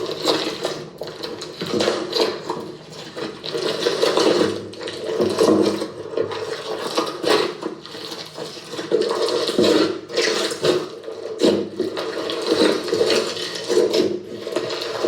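Slime being squished and worked by hand, a continuous run of irregular wet clicks and pops.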